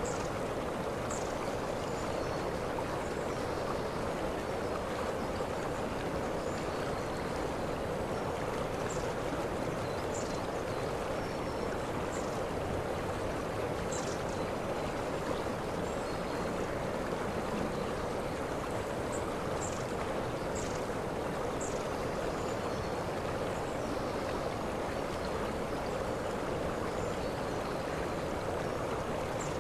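Waterfall rushing steadily, with short faint high chirps every few seconds.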